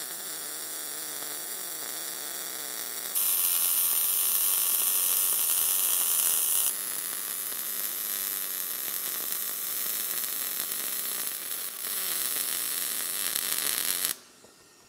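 Steady crackling hiss of a MIG (wire-feed) welding arc laying a bead around a tube in a thin steel barrel lid. It is louder for a few seconds partway through and stops abruptly about a second before the end as the arc is broken.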